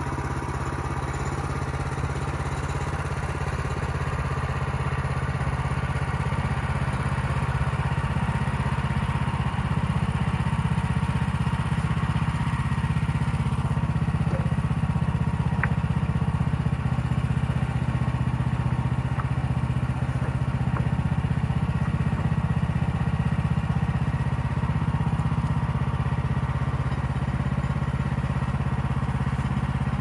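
The gas engine of a Woodland Mills HM130 Max portable bandsaw mill running steadily, with a faint clack of wood about halfway through.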